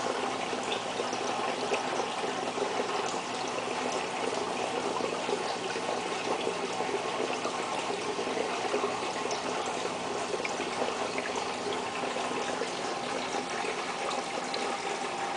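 Steady rush of running water, with a faint steady hum underneath.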